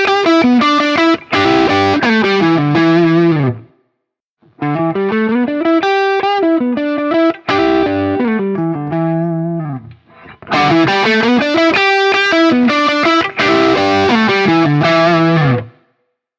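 Electric guitar played through a J. Rockett Klon-type overdrive pedal, giving a lightly driven tone. It plays three short phrases with brief breaks about four and ten seconds in, then stops shortly before the end.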